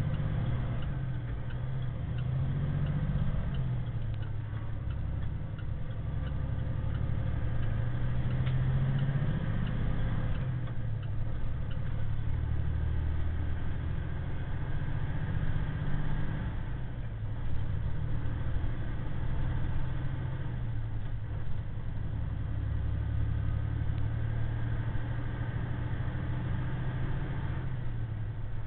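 Semi truck's diesel engine and road noise droning steadily inside the cab while driving; the engine note drifts up and down a little. A few brief knocks come partway through.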